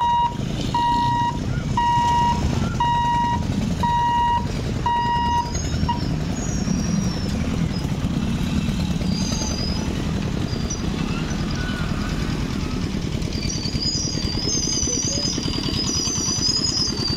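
Motorcycles and other small vehicles running as they cross the railway tracks, a steady low engine rumble. An electronic beeper sounds about once a second for the first six seconds, and high warbling chirps come in near the end.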